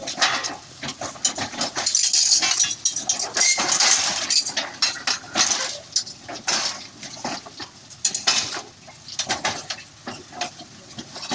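Komatsu D31P-18 bulldozer's steel tracks clanking and squealing as it climbs onto a self-loader trailer. The noise is loudest a few seconds in.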